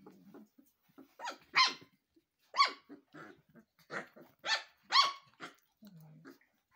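Three-week-old puppies yipping during play: about eight short, high yips in quick succession, with low little grumbles at the start and near the end.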